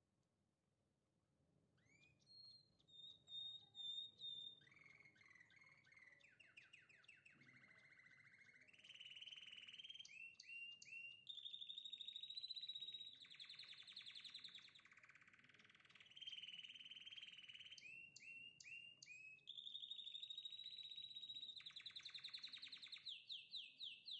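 Songbird chirping and singing fast trills, quiet, with short sliding calls; the same phrases come back several times.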